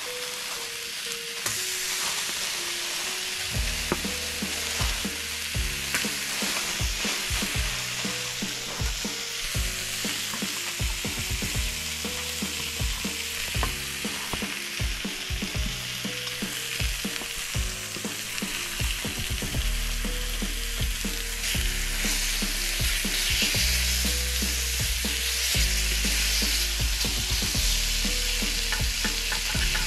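Bacon slices sizzling as they fry in a pan, a steady hiss throughout. Under it plays background music, a melody with a bass line that comes in about four seconds in.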